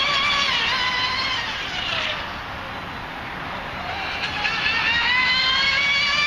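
High-pitched whine of an RC speedboat's Leopard 4074 2150kv brushless motor and 48 mm metal propeller at speed. The whine falls in pitch and fades about two seconds in, then climbs back up in pitch and loudness from about four seconds as the boat speeds up again.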